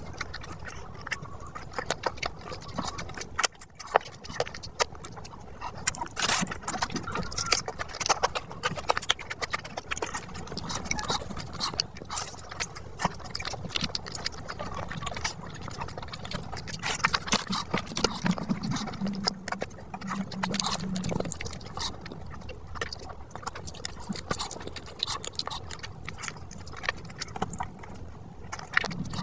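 Close-miked ASMR eating: wet chewing, mouth clicks and smacks as fish biryani and fried fish are eaten by hand, in a dense, irregular run.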